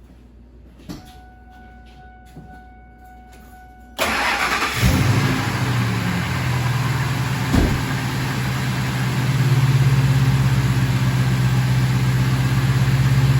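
After a click and a faint steady tone, a Ford F-250's 5.4-litre V8 cranks about four seconds in, catches, and settles into a steady idle. It runs smooth with no miss and no exhaust leak, now that the blown-out spark plug has been replaced and its coil pack refitted.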